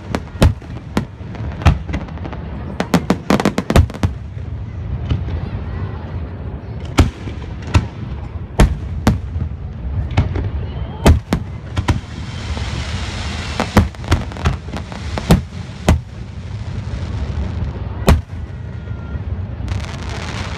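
Aerial fireworks bursting: a string of sharp booms at irregular intervals over a steady low rumble. There is a quick volley of bangs about three to four seconds in, and a stretch of hiss from about twelve to fifteen seconds.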